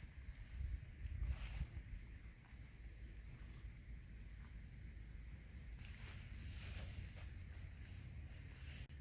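Outdoor hillside ambience: a faint insect chirping that repeats several times a second, with rustling noises about a second in and again later, over a low rumble.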